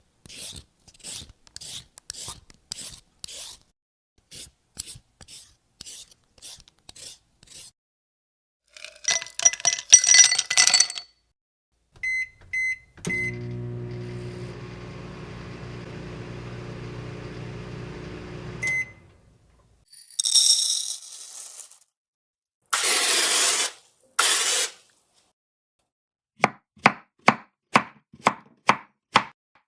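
A sequence of unrelated short sound effects from an editing-app library, one after another: a run of soft ticks, a bright jingling cluster, three short beeps, a steady hum lasting several seconds, high hissing bursts, and a fast run of sharp clicks near the end.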